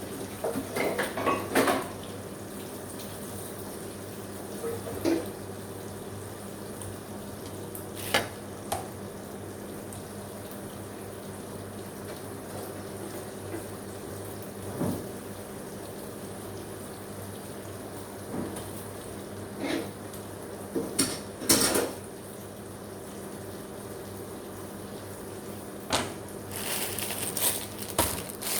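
Kitchen work: scattered clinks and knocks of dishes and utensils over a steady low hum, with water running from a tap in the last couple of seconds.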